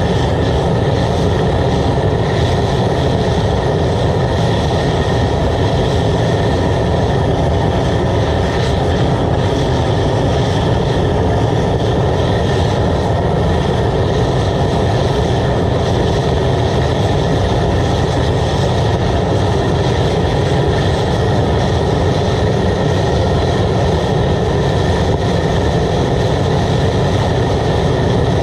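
Waste oil burner running steadily at full fire: a loud, even rush of flame and blower air that does not change, with a large pan of water above it at a rolling boil.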